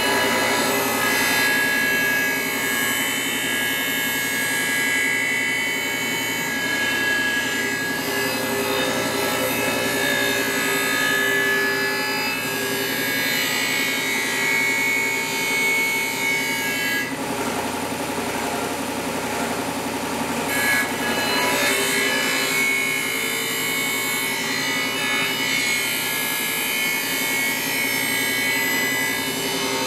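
Powered bench sander running with a steady motor hum while a steel knife blade is ground against it, a continuous rasping grind that throws sparks. The grinding changes note for a few seconds a little past halfway, then returns.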